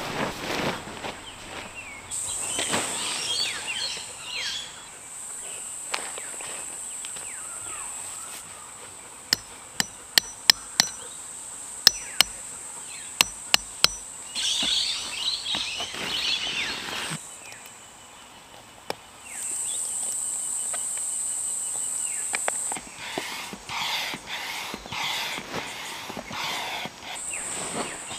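Tent fabric rustling and crinkling as a tent is unfolded and pitched. In the middle, about ten sharp knocks of a hammer driving tent pegs. A steady high insect buzz comes and goes behind it.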